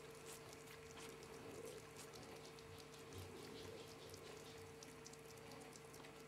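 Faint wet clicks and smacks of a ferret licking vitamin paste from a squeezed tube, over a faint steady hum.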